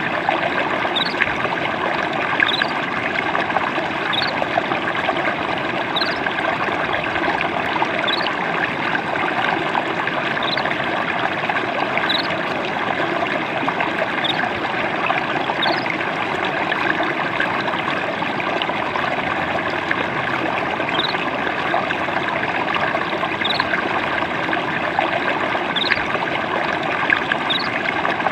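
Water trickling steadily over stones, an even splashing rush, with short high rising notes every second or two.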